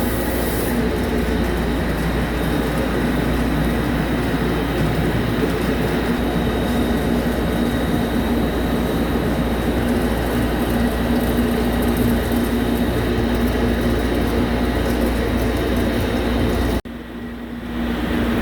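CNC machine tool cutting a GCD500 ductile cast iron tire mold segment: steady machining noise with a thin high whine over a low hum. The sound drops out abruptly about 17 seconds in, then builds back up.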